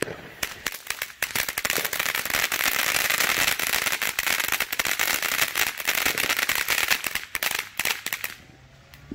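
Ground firework fountain spraying sparks with a dense, rapid crackle of pops over a steady hiss, cutting off suddenly about eight seconds in.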